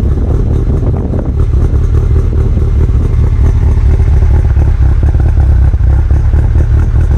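Freshly built Subaru STI EJ257 turbocharged flat-four idling on its first tune, heard at the quad exhaust tips. It is a steady, deep, lumpy exhaust rumble.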